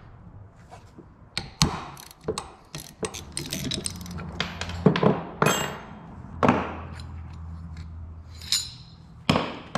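A 3/8 socket ratchet and a 7/16 wrench working small bolts loose: ratchet clicking, with sharp metal clinks and knocks scattered through as the bolts and brackets come free.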